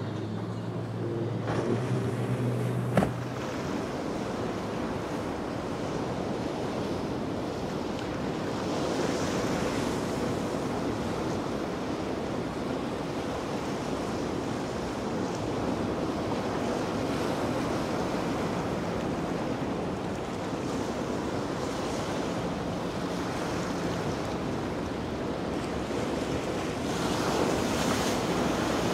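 Ocean surf and waves washing steadily, with wind buffeting the microphone. A low steady hum fades out about three seconds in, ending with a click.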